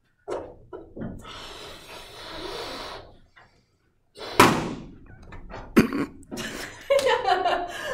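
Breath blown into a balloon to inflate it, then about four seconds in the balloon bursts with a single loud pop while being blown up. A woman's laughter starts near the end.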